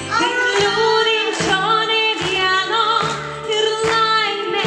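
Background music with female voices singing over a steady beat, about one beat a second.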